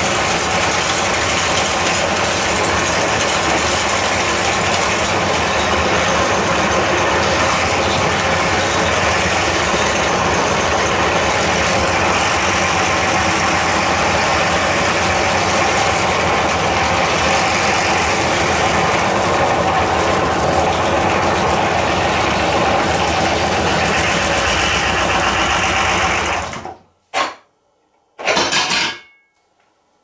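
Electric meat grinder motor running steadily while grinding plastic fidget-toy light bulbs. Near the end it stops, runs twice more in short bursts, then is switched off.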